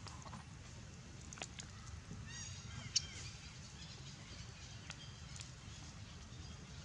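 Quiet outdoor ambience with a low steady rumble and a few faint clicks. A brief run of high chirping animal calls comes about two and a half seconds in, followed by a sharp click.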